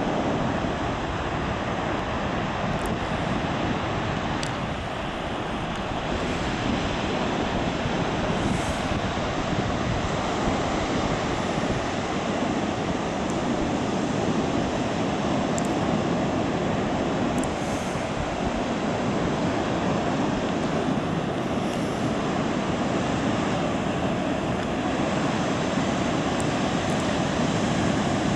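Heavy surf breaking, a steady wash of wave noise, with wind on the microphone.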